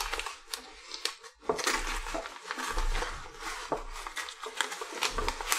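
Paper packaging being handled and pulled open by hand: irregular rustling and crinkling with scattered sharp clicks and taps.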